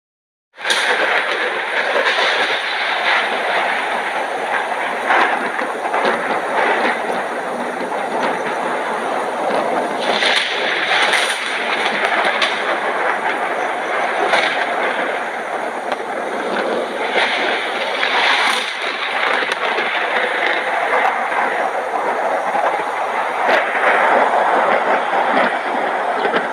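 Heavy rain pouring steadily in a thunderstorm, with a few sharper spatters now and then.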